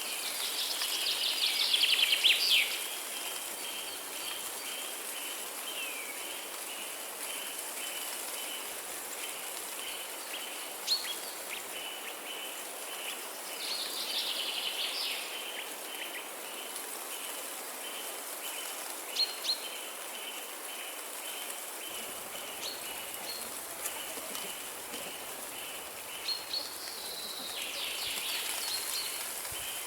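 Birds singing in three short warbling bursts over a steady hiss like rain, with an evenly pulsed high chirping running underneath and a few sharp clicks.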